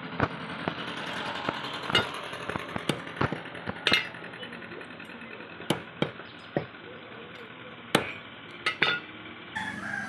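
Hands skinning and pulling apart a quail on a wooden chopping block: irregular sharp knocks and taps, about a dozen, over a steady background hiss.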